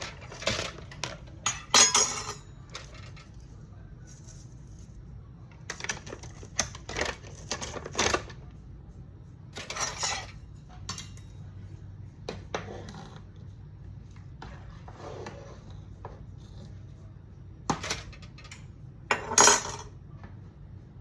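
Pots, lids and metal utensils clattering and clinking during cooking: scattered irregular knocks and clinks, the loudest about two seconds in and again near the end, over a steady low hum.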